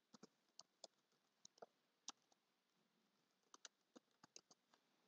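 Faint computer keyboard typing: irregular single keystroke clicks, with a pause of about a second in the middle.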